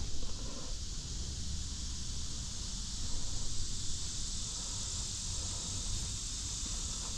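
Steady high-pitched hiss of a summer insect chorus in woodland, with a faint low rumble underneath.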